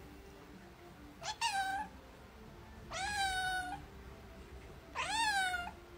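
Tabby cat meowing three times, each meow rising in pitch and then holding level, the second and third a little longer than the first.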